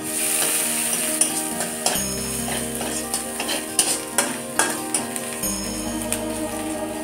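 Metal spatula stirring and scraping chopped food in an iron kadai, with repeated clinks against the pan and a sizzle of frying, over background music.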